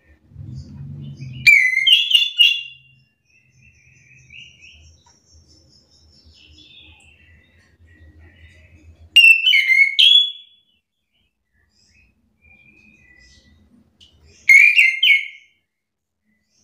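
Chestnut-capped thrush singing: three loud bursts of quick, sharp whistled phrases, the first about a second and a half in, the next around nine seconds and the last near fourteen seconds. Fainter, softer twittering notes fall between them. A faint low rumble comes just before the first burst.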